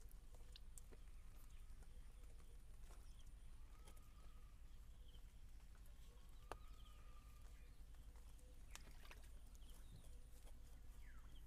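Near silence: quiet outdoor ambience with a steady low hum and a few faint bird chirps. There is a single small click about six and a half seconds in.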